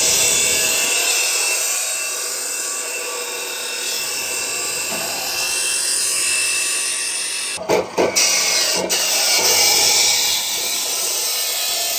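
Angle grinder grinding metal, a steady hiss. It breaks off briefly a little before the 8-second mark, with a few knocks, then runs on.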